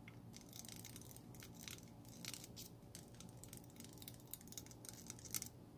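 A string of short hisses from an aerosol spray lubricant can, fired through its straw nozzle onto the bearing in a baitcasting reel's side plate, cleaning it to cure reel noise. The bursts come irregularly, a dozen or so, with the strongest near the end.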